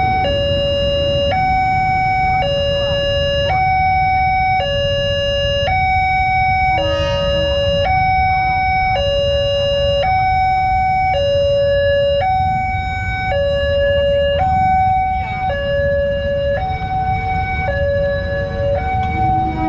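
Railway level-crossing warning alarm sounding a steady two-tone high-low pattern, each tone held about a second, while the crossing is closed for a train. A constant low rumble runs underneath.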